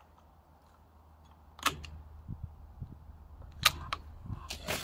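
Moderated Weihrauch HW110 .22 PCP air rifle being fired and cycled: a few sharp metallic clicks, the loudest a little over halfway through, then quicker clicks near the end as the side lever is worked to chamber the next pellet.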